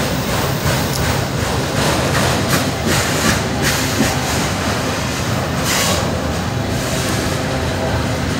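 Freight train of autorack cars rolling past at close range: a steady rumble of steel wheels on rail, with several sharp clacks a few seconds in as wheels cross rail joints.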